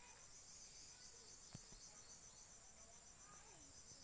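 Faint insect chorus: a steady high buzz with a fast, evenly pulsing trill. A single soft click comes about a second and a half in.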